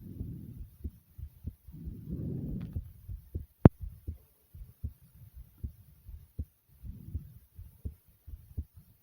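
Fast heartbeat after exercise: regular low thumps, with heavy breaths heard as muffled rushes at the start, about two seconds in and again about seven seconds in. A single sharp click, the loudest sound, comes about three and a half seconds in.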